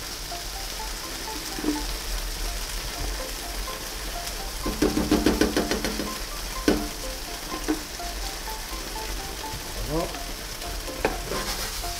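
Liquid cream sizzling as it is poured into a hot frying pan of browned chicken and onions over a gas flame, a steady hiss with a denser spell about five seconds in. A few sharp clicks or knocks late on.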